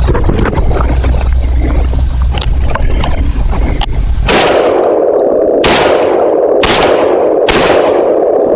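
Revolutionary Arms TRP-35 bullpup 12-gauge shotgun fired four times in quick succession, starting about halfway through, roughly a second apart, each shot followed by a short ringing tail. The gun is emptying its magazine until the bolt locks open.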